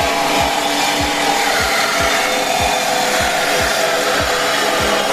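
Cordless reciprocating saw running steadily as it cuts through the steel exhaust pipe to remove the secondary catalytic converters. Background music with a steady bass beat runs underneath.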